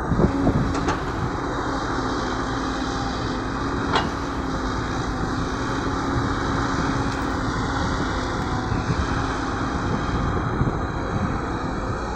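Heavy diesel earth-moving machinery running steadily with a constant low hum, a few knocks at the start and a single sharp clank about four seconds in.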